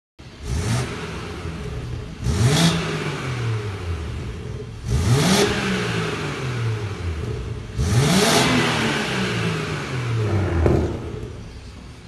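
BMW 440i's turbocharged 3.0-litre straight-six revved four times through an Armytrix valvetronic exhaust, each rev climbing quickly and falling back slowly. A short pop near the end, then it settles to idle.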